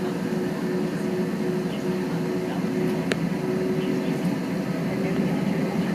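Steady airliner cabin noise inside an Airbus A320: jet engines and air conditioning running as an even low rumble with a constant hum, and one sharp click about three seconds in.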